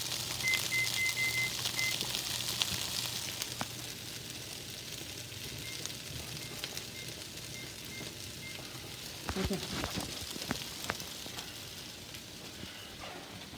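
Onions frying in a pan: a steady sizzle with crackles, busiest in the first few seconds. A few sharp knocks come near the end.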